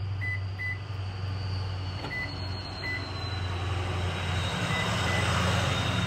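Short high electronic beeps from a Toyota 4Runner, coming in three pairs as the key fob's lock and unlock buttons are pressed, over a steady low hum.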